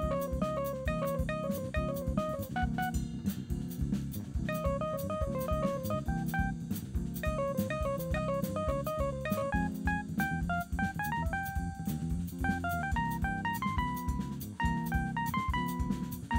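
A small jazz band playing live: drum kit and electric bass under a quick melodic line of short notes.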